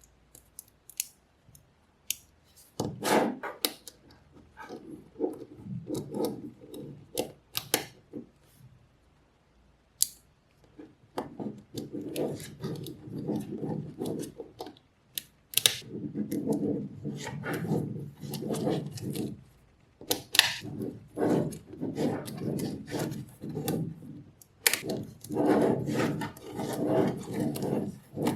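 Small magnetic balls clicking together as they snap into place, with stretches of rattling and rubbing as handfuls of balls are shifted and worked.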